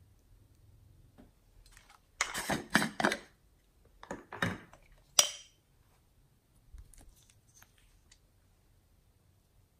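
Small containers being handled over a glass dish: a quick cluster of clicks and rattles about two seconds in, another short cluster just after four seconds, and a single sharp glass clink a little past five seconds, then only faint ticks.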